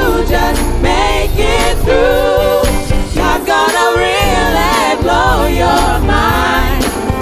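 Four women singing a gospel song together in harmony over a backing track with a steady bass line and a regular drum beat.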